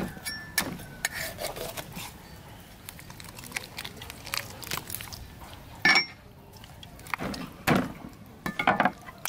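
Steel cleaver cutting and splitting a raw whole chicken on a wooden chopping board. Scattered sharp knocks of the blade meeting the board, the loudest about six and eight seconds in, with softer clicks of handling between.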